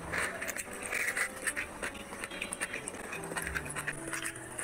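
Close-miked eating by hand: wet chewing and lip smacking on mouthfuls of rice mixed with mutton curry gravy, with many small clicks and a few breaths through the nose or mouth.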